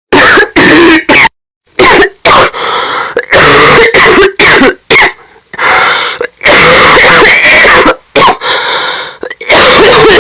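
A person's dry cough, heavily amplified and distorted. It comes in fits of short sharp hacks mixed with longer rasping throat-clearing coughs, with brief pauses about a second and a half in and about five seconds in.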